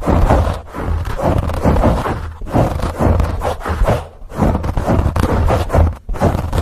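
Microphone being scratched close up in a repeating pattern: rough scratching with a deep rumble, broken by short pauses about every two seconds.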